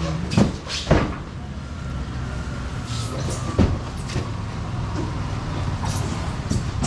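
A vehicle engine idling with a steady low hum, with a few sharp knocks and clatters scattered through it.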